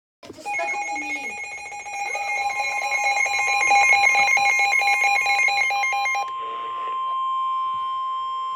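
Emergency alert attention tones: a fast-pulsing two-tone alarm begins just after the start. About two seconds in, a steady single tone joins it and carries on alone once the pulsing stops, about six seconds in.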